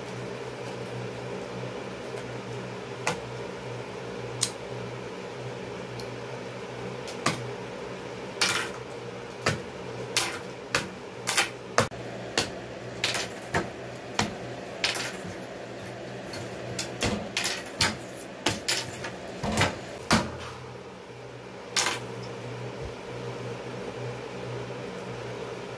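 Irregular knocks, clicks and clatters of small objects being handled on a desk, coming thick in the middle stretch and stopping a few seconds before the end, over a steady mechanical hum.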